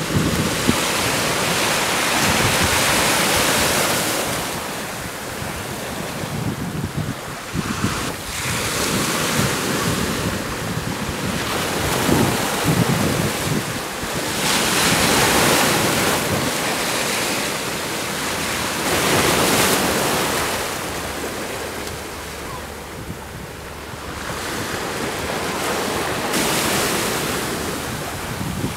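Small waves breaking and washing over the shallows, the surf swelling and falling away every few seconds, with wind buffeting the microphone.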